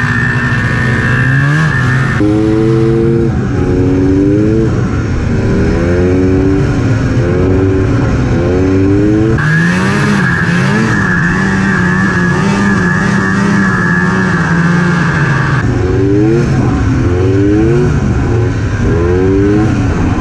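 Snowmobile engine running while the sled is ridden, its pitch rising and falling again and again as the throttle is worked. A steady high whine sounds over it for the first couple of seconds and again through the middle stretch.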